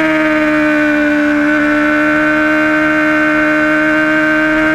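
Honda sportbike engine running hard at high revs on track, a steady high-pitched drone whose pitch eases slightly at first and then holds level through a corner.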